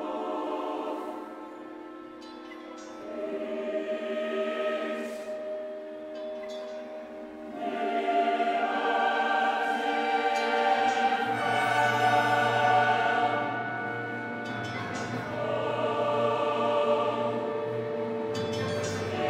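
Mixed choir and orchestra holding slow sustained chords in a contemporary classical work. They start soft, swell to loud at about eight seconds in, and a low bass line enters a few seconds later.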